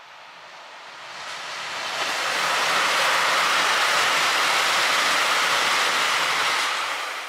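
KiHa 261 series diesel express train passing at speed: a rush of wheel, rail and engine noise that swells over the first few seconds, holds loud, then falls away near the end.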